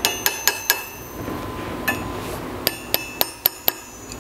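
Small hammer tapping the steel circlip on the nose of a 1970 Porsche 911E crankshaft to seat it all the way around. These are light, ringing metallic taps: four quick taps at the start, a single one near the middle, then five more in a quick run.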